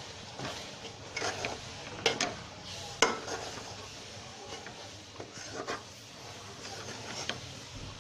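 A spoon stirring and scraping a thick mixture of roasted flaxseed powder, ghee and jaggery syrup in a metal pot, with a few sharp knocks of the spoon against the pot, the loudest about two and three seconds in.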